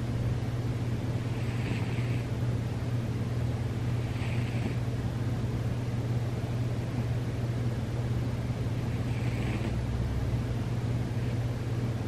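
Sleeping cat snoring: short, wheezy snores every few seconds over a steady low hum.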